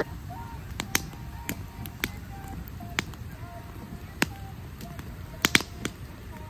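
Campfire burning damp wood, crackling with sharp, irregular pops, several in quick succession about five and a half seconds in.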